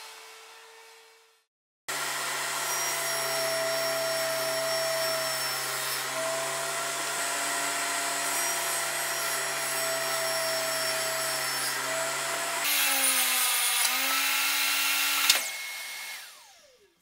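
Makita table saw running steadily with its dust collector drawing air, a low hum under a steady whine and hiss. Near the end there is a sharp click, and the saw winds down, its whine falling in pitch as it fades.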